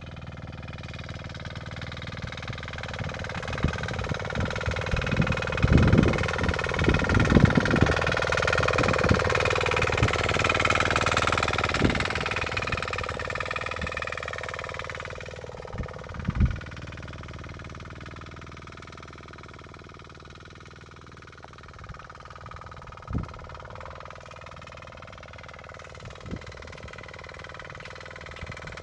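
A 6 hp Kisan Kraft power weeder's engine running under load as its rotary tines till the soil. It is loudest through the first half, with a cluster of sharp knocks around the middle and a few single knocks later.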